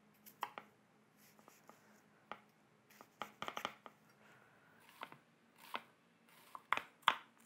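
Chef's knife cutting a half onion on a wooden chopping board: scattered light taps of the blade through the onion onto the board as the onion is scored, then quicker, louder chopping in the last second as it is diced.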